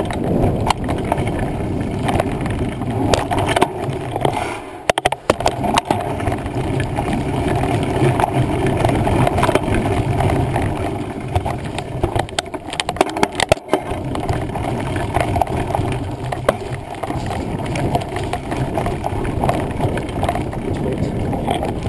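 Mountain bike riding over a rough woodland trail: a steady rumble of tyres and frame with frequent knocks and rattles from the bumps, the sound cutting out briefly twice.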